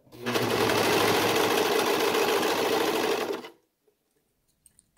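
Serger (overlock machine) running at a steady speed, stitching through the layers of a knit neckband and garment; it starts just after the beginning and stops about three and a half seconds in.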